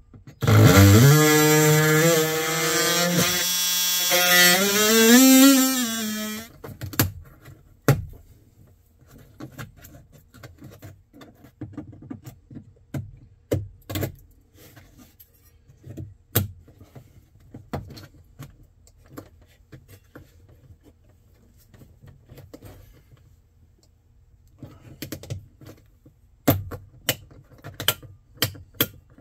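Cordless DeWalt oscillating multi-tool with a flush-cut blade running for about six seconds, cutting a switch opening in a plastic dash panel; its pitch wavers and dips as the blade bites, then it stops. After that come scattered light clicks and taps of hand work, with a cluster of plastic clicks near the end as the switch is pressed into the dash.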